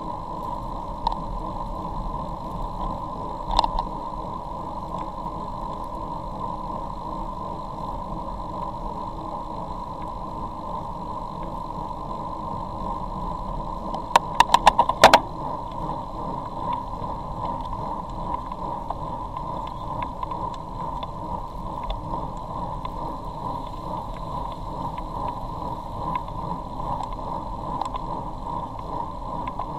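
Riding noise from a camera moving with a group of road cyclists: wind rushing over the microphone and tyres on a wet road, steady throughout. A quick run of sharp clicks about halfway through stands out as the loudest moment.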